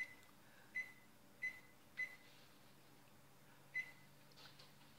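Over-the-range microwave keypad beeping as its buttons are pressed to set a 10-minute timer: five short beeps at the same pitch, four in the first two seconds and the last nearly four seconds in.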